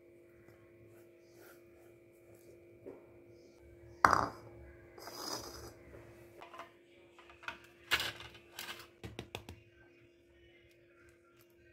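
A few sharp knocks and clinks of kitchenware being set down and handled on a stone countertop, the loudest about four seconds in and a quick cluster near eight to nine seconds, over a faint steady hum.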